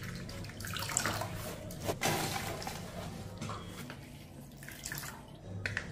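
Hands scooping soaked whole grains and pulses out of water in a brass bowl: water splashing and dripping off the handfuls, with wet grains rattling. A few sharp clicks come as grains drop onto the plate.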